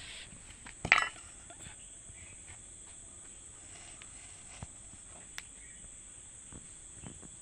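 Crickets chirping steadily, with one sharp clatter about a second in and a few faint knocks.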